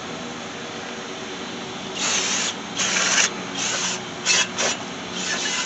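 Aerosol brake cleaner sprayed in six short hissing bursts of uneven length, starting about two seconds in, cleaning the parking-brake shoes inside the rear rotor hat.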